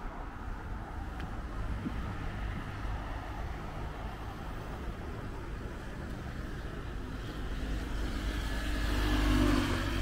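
Steady low rumble of nearby road traffic, with a car approaching and passing close, loudest about nine seconds in.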